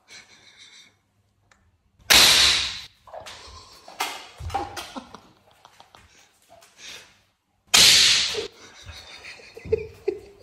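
Two loud sharp cracks about five and a half seconds apart, each dying away within a second, with smaller knocks and scuffs in between.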